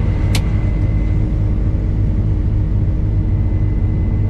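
Steady low engine rumble of a running vehicle, with a faint constant whine above it and one short click about half a second in.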